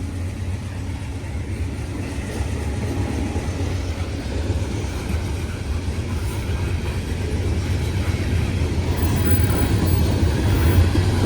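Norfolk Southern freight train running by, a steady low rumble that slowly grows louder.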